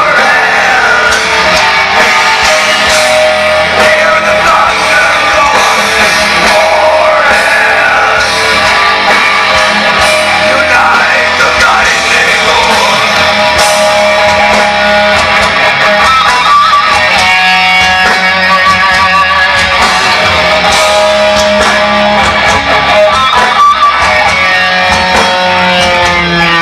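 Heavy metal band playing loud live through Marshall amplifier stacks: distorted electric guitar and drums with shouted vocals, heard from within the crowd.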